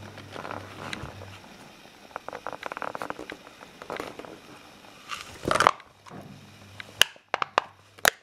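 Close rustling and scattered clicks as the camera is handled and a small dog moves on a shaggy rug, with a loud rustle about five and a half seconds in and sharp clicks near the end.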